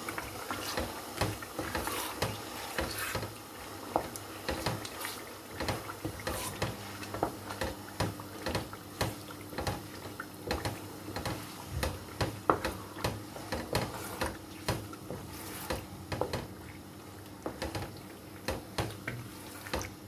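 Wooden spoon stirring a thin, stock-laden tomato stew in a large pot: liquid sloshing, with the spoon knocking and scraping against the pot at irregular intervals.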